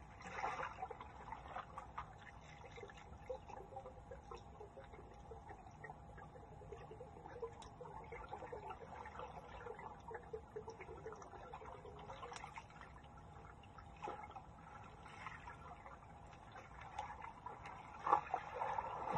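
Swimmers moving in a pool, heard underwater through a submerged camera: muffled splashing and bubbling with scattered small clicks, louder briefly at the start and again near the end.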